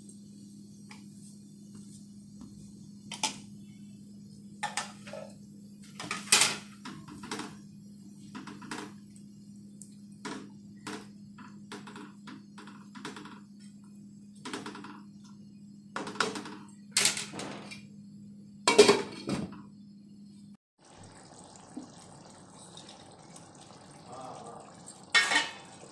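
A spatula stirring mutton curry in a non-stick kadhai, knocking and scraping against the pan in irregular clicks, over a steady low hum. The hum stops suddenly about 20 seconds in, and one more sharp knock comes near the end.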